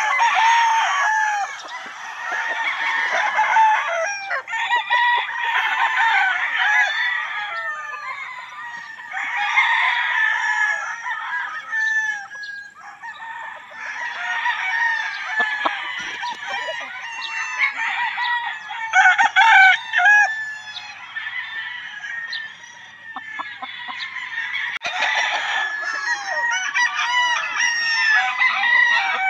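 Many gamefowl roosters crowing over one another, call after call in overlapping bouts that swell and fade.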